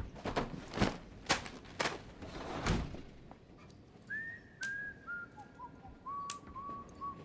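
A few short thumps, then someone whistling a short phrase of held notes that steps down in pitch.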